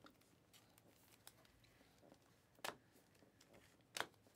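Trading cards being flipped through by hand: faint short card flicks and snaps as each card slides off the stack, the two clearest about two and a half and four seconds in, over near silence.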